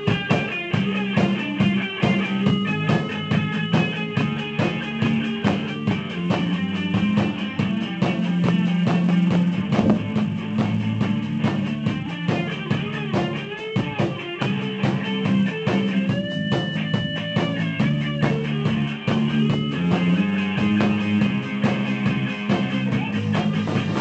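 Rock band playing an instrumental break with no vocals: guitar, bass and a drum kit keeping a steady beat, recorded on a small camcorder.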